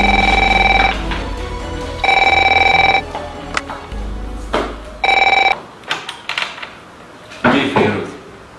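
Desk telephone ringing: three electronic rings about a second long, the third cut short as the handset is picked up. Clicks and a brief rustle follow as the handset is lifted.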